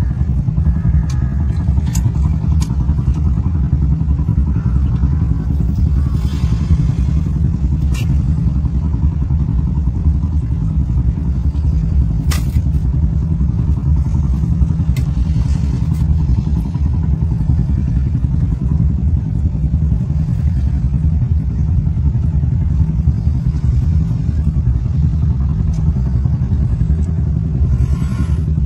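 A loud, steady low rumble, with a few sharp clicks on top, the clearest about twelve seconds in.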